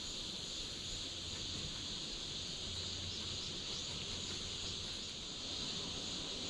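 Outdoor chorus of insects making a steady, high, even drone.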